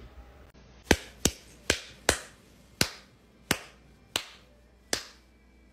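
A dog's paw tapping repeatedly on something hard: about nine sharp, separate taps, unevenly spaced, roughly one every half second.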